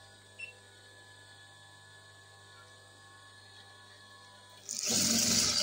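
Faint steady electric hum while the fabric is positioned, then near the end the electric sewing machine suddenly starts stitching with a loud, rattly run.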